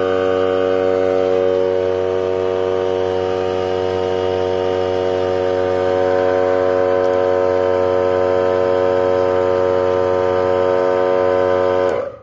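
Hyper Tough 3-gallon oil-free air compressor running on its first switch-on, its pump and motor making a loud, steady whining drone that cuts off abruptly just before the end.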